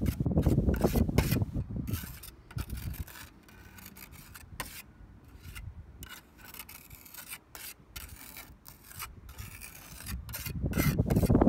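Pointing trowel scraping and smearing pointing compound along a roof's ridge capping, in a series of short scraping strokes. Wind rumbles on the microphone for the first couple of seconds and again near the end.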